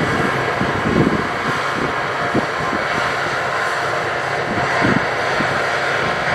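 New Holland CX8080 combine harvester running steadily under load while harvesting, a constant dense machine noise, with wind gusting on the microphone.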